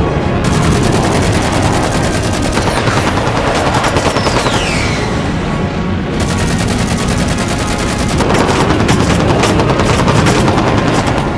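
Fighter-jet cannon fire as a film sound effect: two long bursts of rapid gunfire, the first stopping about six seconds in and the second starting about two seconds later, over music. A falling whistle sounds about four seconds in.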